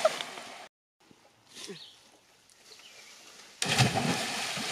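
People splashing into the water off a rope swing. One splash dies away in the first second, and a second loud splash hits about three and a half seconds in.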